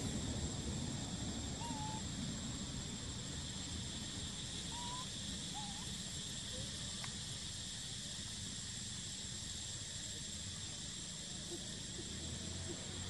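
Outdoor ambience: a steady high insect buzz with a low background rumble, and a few brief soft chirps in the first half.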